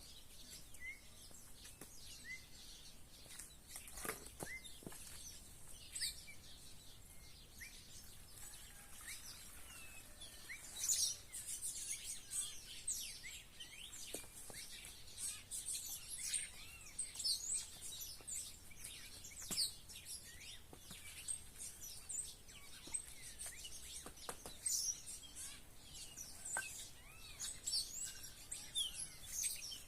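A flock of small wild birds chirping and calling together, many short high chirps and trills overlapping. The chorus is sparse at first and grows dense about ten seconds in, with a few faint clicks among the calls.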